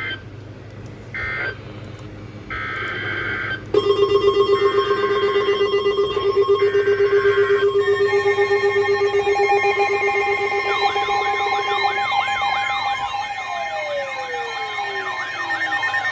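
Emergency alert signal sounds: short bursts of two-tone digital data tones (EAS/SAME header and end-of-message codes), then stacked steady alert tones. Rising and falling siren wails join them about two-thirds of the way in, with one long downward siren glide near the end.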